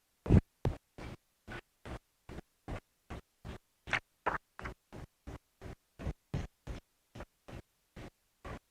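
Faulty audio recording cutting in and out in a steady stutter: about three brief blips of sound a second, each separated by dead silence.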